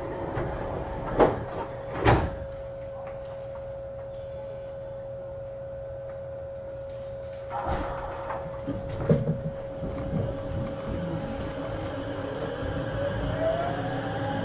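Inside a JR West 321-series motor car: two sharp thumps about one and two seconds in, then clunks around the middle, and near the end the Toshiba VVVF inverter whine starts and rises steadily in pitch as the train begins to accelerate away.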